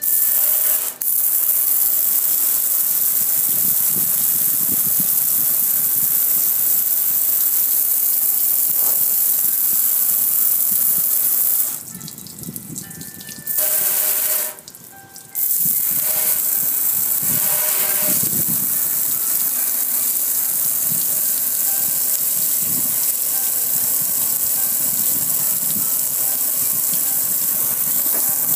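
A jet of water from a garden hose nozzle spraying and splashing onto a gas grill, a steady hiss. The spray eases off about twelve seconds in, cuts out briefly about fifteen seconds in, then resumes.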